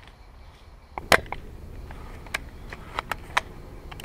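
An airsoft rifle fires one sharp shot about a second in, aimed at an opposing player. It is followed by several lighter sharp clicks spread over the next few seconds.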